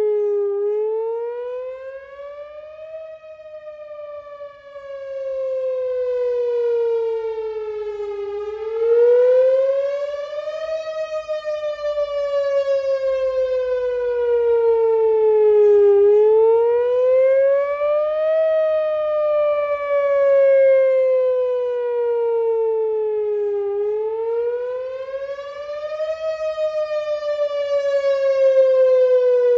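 Whelen Vortex R4 electronic outdoor warning siren sounding its wail tone during a routine monthly test. The pitch rises quickly for about two and a half seconds, then falls slowly for about five seconds, repeating roughly every seven to eight seconds.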